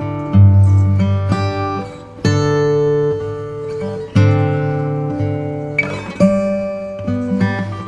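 Background music: acoustic guitar played in plucked and strummed chords, one new chord every second or two.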